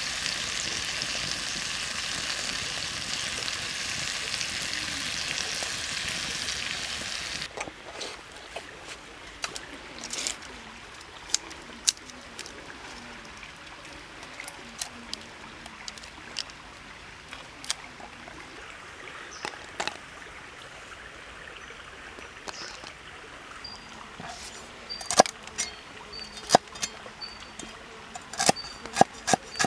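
Stuffed squid sizzling on a hot stone slab, an even hiss that cuts off abruptly about seven seconds in. Then scattered small clicks and taps of hand work, and near the end a cleaver chopping green onions on a wooden board in fast, regular knocks.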